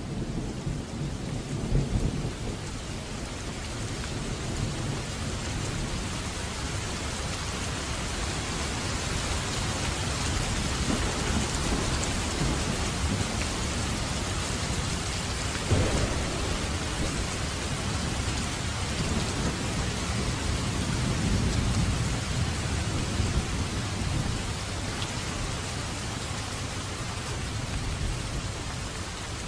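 Heavy rain falling steadily, with thunder rumbling low in the background. A sharper thunderclap comes about halfway through, and the rumble swells again a little later.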